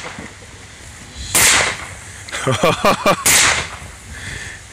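AR-15 rifle firing two single shots about two seconds apart, each a sharp, loud crack.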